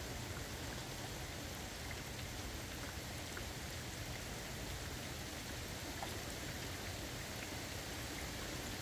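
Steady rain falling: an even hiss with scattered small ticks of individual drops.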